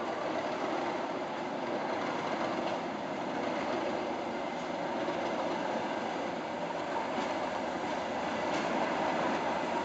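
English Electric Class 37 diesel locomotive pulling coaches slowly into a station. Its V12 diesel engine and the rolling train make a steady rumble that grows a little louder near the end as it draws closer.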